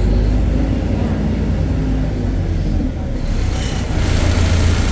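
BredaMenariniBus Avancity Plus city bus's Deutz diesel engine running with a steady low drone. It eases slightly about three seconds in, then grows louder again.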